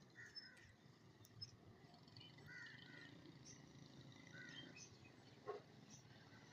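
Faint scattered bird chirps over a low background rumble, with one short call sliding down in pitch about five and a half seconds in.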